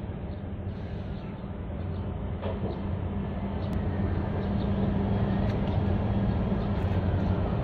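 A large container ship's engines: a low, steady drone with a deep hum, slowly growing louder as the ship comes in.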